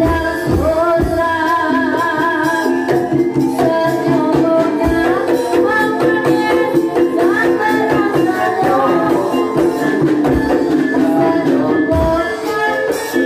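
Banyumasan gending, Javanese gamelan music, playing at a steady loud level, with a few deep drum strokes every so often.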